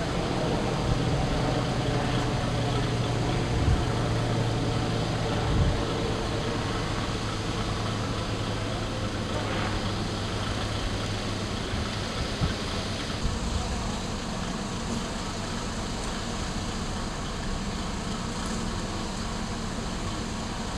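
Diesel railcar engine running with a steady low hum that fades out about halfway through, with two short dull knocks a few seconds in.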